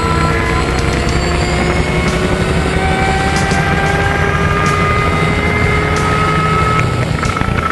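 Race semi truck's twin-charged engine, supercharged and turbocharged, running hard under load as the truck climbs. A steady rumble with a high whine held over it throughout.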